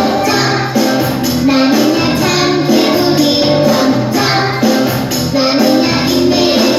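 A children's song playing loudly and continuously, with young children singing together over the music.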